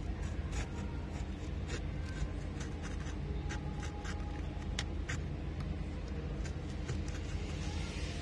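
Utility knife blade scoring along a paper template on a BMW 3 Series dashboard: a run of short, irregular scratches as the blade cuts along the outline, over a steady low hum.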